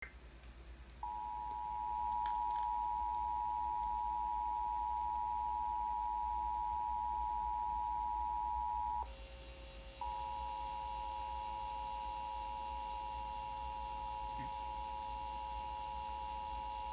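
Emergency Alert System attention signal: a steady, high electronic tone held for about eight seconds. It breaks off for about a second around nine seconds in, then sounds again, slightly quieter, through the rest.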